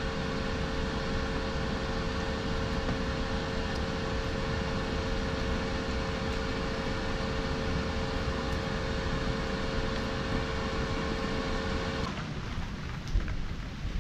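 Steady machine hum with a constant pitched tone over a hiss, cutting off abruptly about twelve seconds in; then rain on a wet surface.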